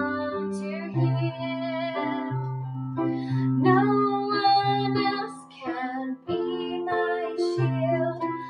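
A female voice singing a children's worship song, accompanied on a digital piano.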